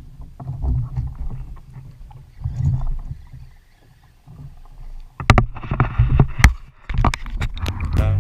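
Wind rumbling on the microphone with water slapping against kayak hulls, then, about five seconds in, a run of loud, sharp splashes at the waterline beside a kayak.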